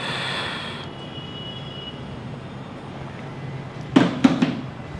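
Steady low hum of a hot-air rework station, with a short hiss of blowing air at the start, while a replacement IC is soldered onto an LED TV's T-con board. About four seconds in come three sharp clacks close together.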